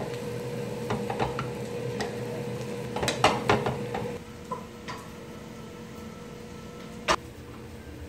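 Mushrooms sizzling in a frying pan, with a wooden spoon stirring and knocking against the pan several times over a steady hum. About four seconds in this stops, leaving a quieter steady background and a single sharp click near the end.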